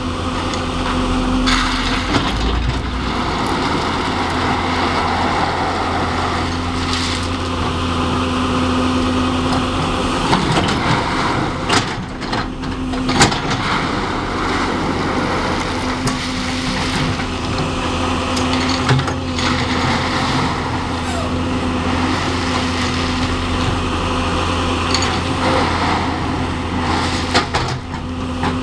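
L&T-Komatsu tracked hydraulic excavator's diesel engine running steadily under load while its bucket spreads crushed stone, with a few sharp clacks of stone about halfway through.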